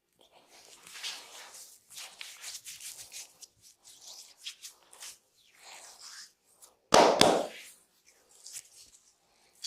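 Hands rubbing and working over skin in a deep-tissue massage, a string of soft, irregular swishing strokes, then one loud sudden hit about seven seconds in.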